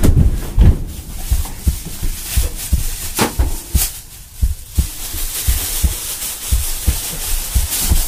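Low, deep thumps repeating unevenly about two to three times a second, with two sharp hits a little over three seconds in, about half a second apart.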